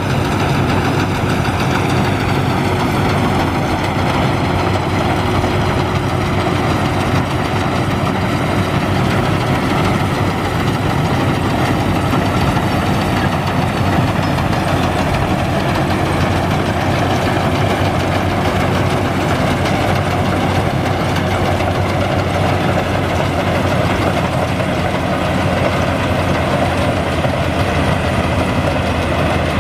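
Combine harvester's engine running steadily, a constant low drone with no change in speed.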